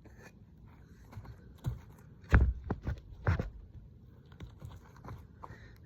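A few dull thumps and knocks, the loudest about two and a half seconds in, followed by fainter ones.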